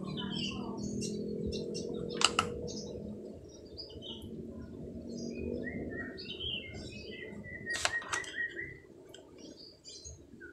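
Small birds chirping and tweeting over a low hum that fades out about halfway through. Sharp clicks sound twice about two seconds in and again in a cluster around eight seconds, as crocodile test clips and a component tester are handled.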